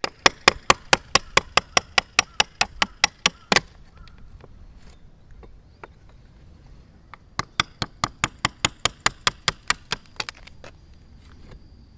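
Rapid hammer strikes, about six a second, in two runs of a few seconds each with a pause between.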